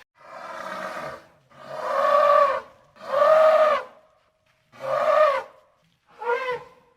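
An animal calling five times, each call drawn out and rising then falling in pitch, the first one quieter than the rest.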